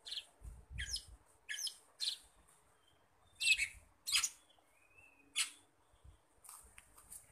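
Oriental magpie-robin (kacer) singing in short, sharp chirps and downward-sweeping notes, a phrase every half second or so with a brief pause in the middle, and a faint whistled note about five seconds in.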